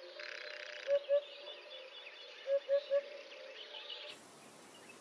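Eurasian hoopoe singing its soft, low "oop-oop-oop" territorial song: two notes about a second in, then three evenly spaced notes about two and a half seconds in.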